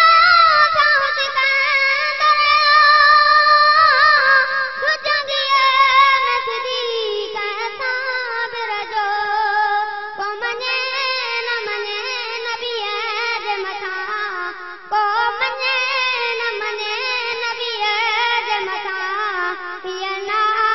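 A boy's high voice singing a Sindhi naat through a microphone, unaccompanied, in long held lines with wavering, ornamented pitch.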